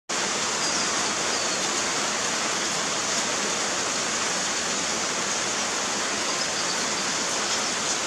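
Heavy rain falling in a steady, continuous hiss, with water pouring off a roof edge.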